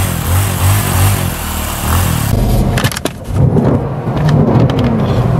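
Mercedes-AMG C63's twin-turbo V8 running and being revved with the car standing still, with a run of sharp pops about two and a half seconds in.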